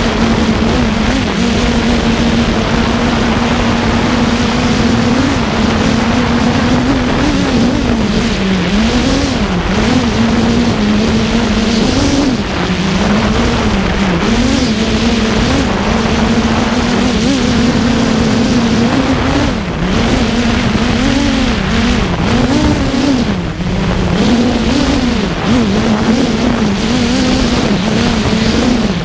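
FreeBird One drone's electric motors and enclosed propellers, heard from its onboard camera: a steady hum whose pitch keeps wavering up and down as the motors correct against gusts of 45–50 mph wind. Wind rushes hard over the microphone throughout.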